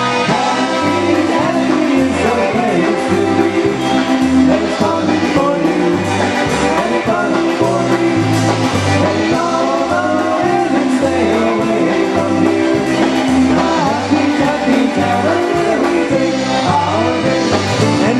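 Polka band playing live: a bouncing oom-pah bass alternating between two low notes about twice a second under the melody.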